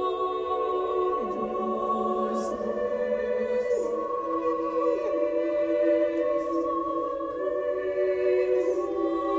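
Mixed choir holding a dense, sustained chord, with some voice parts sliding down in pitch to new notes and a few short hissing consonants.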